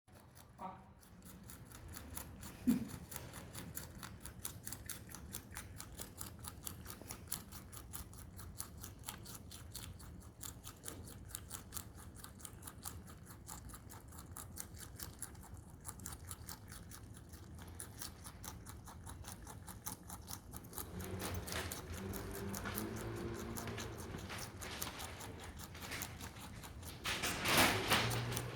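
Pet rabbit chewing celery: a fast, even run of small crunching clicks, getting louder near the end.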